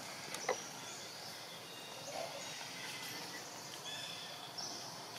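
Outdoor forest ambience: a steady high hiss, with a single sharp click about half a second in and a few faint high chirps around four seconds in.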